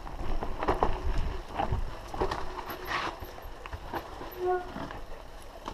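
Downhill mountain bike rattling and clattering over a rocky trail: irregular knocks from the frame, chain and wheels on rock, over a low rumble of wind and tyre noise. A brief high squeal about four and a half seconds in.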